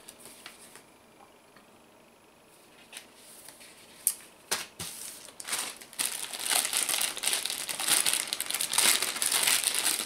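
Clear plastic bag crinkling as hands work at the bagged power cable inside it, loud and continuous from about halfway through, after a few soft clicks and taps.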